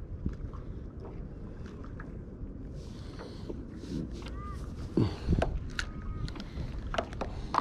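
Hobie kayak under way on calm water: a steady low rumble of water moving along the hull, with scattered light clicks and knocks from the boat and tackle.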